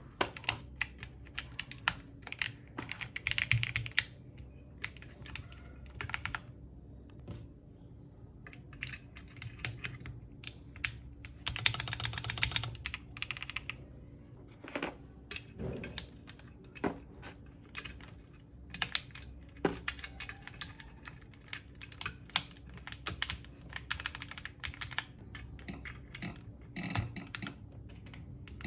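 Typing on a Kiiboom Moonshadow 81 mechanical keyboard fitted with Leobog IceSoul switches: irregular keystroke clacks, with fast runs of keystrokes about three seconds in and again around twelve seconds.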